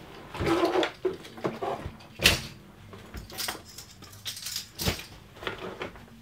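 Irregular clattering and rustling as tools, a case and cables are handled, with sharp knocks about two seconds in and again near five seconds. A faint steady hum runs underneath.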